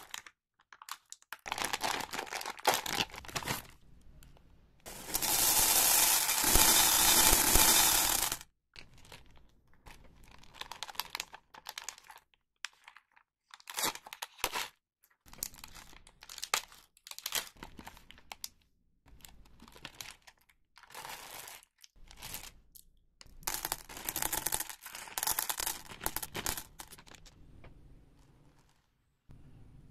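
Plastic candy wrappers being crinkled and torn open by hand, in irregular rustling bursts, with one long, loud stretch of tearing and rustling about five seconds in.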